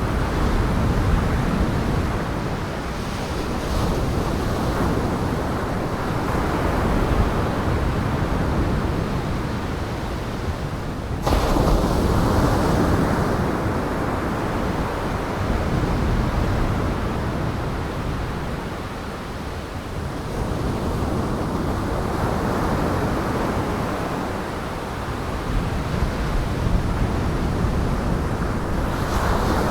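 Storm waves breaking and high wind, a dense rushing noise that swells and ebbs every few seconds, with wind buffeting the microphone. The sound jumps abruptly about eleven seconds in.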